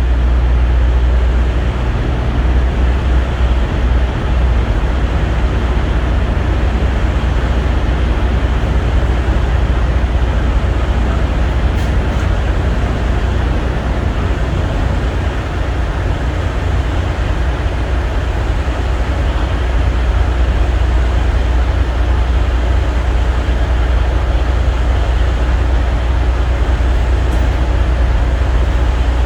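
A steady, loud, low mechanical drone, like a nearby diesel engine running at idle, holding level throughout.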